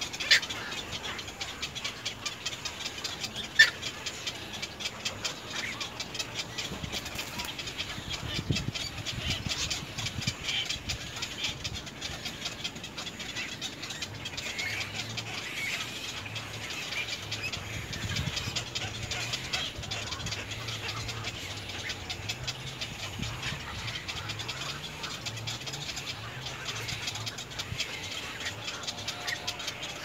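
Birds chattering and chirping rapidly and steadily, with two sharp clicks in the first few seconds.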